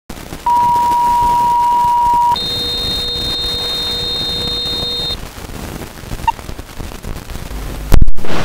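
Film-leader countdown audio: a steady test tone for about two seconds, then a higher, shriller steady tone for about three seconds, then one short beep, over old-film hiss and crackle. A loud thump comes near the end.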